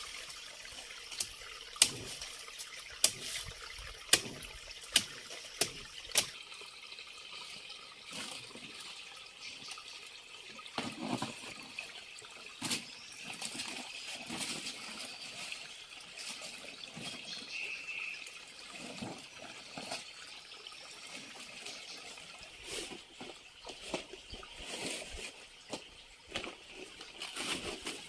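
Water trickling steadily, with a run of sharp knocks about once a second during the first six seconds, then softer scattered rustles and taps.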